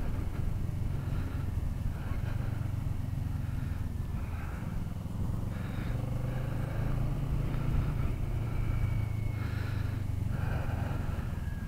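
Motorcycle engine running steadily at road speed, a low even drone under rushing wind noise.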